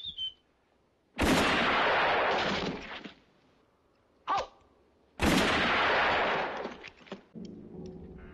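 Two loud revolver shots about four seconds apart, each with a long echoing tail. Music comes in near the end.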